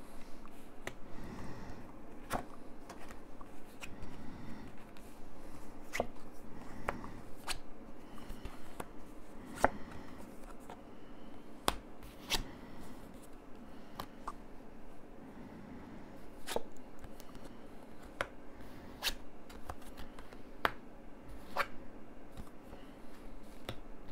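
Tarot cards being laid and turned over by hand on a cloth-covered table: soft sliding and brushing of card stock, with sharp little card snaps at irregular intervals of about one to two seconds.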